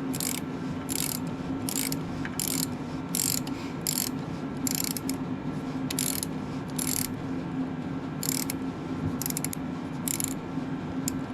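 Ratchet wrench clicking in short back-and-forth strokes, about two a second, while working a stiff bolt loose on a tractor's starter mounting, over a steady low hum.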